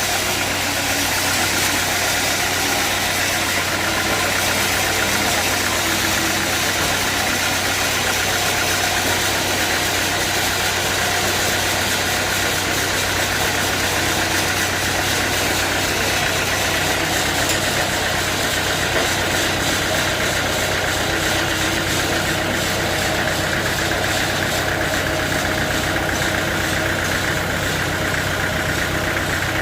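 Sawmill machinery running steadily: a constant low hum and a steady high whine over a dense mechanical noise, with no pauses.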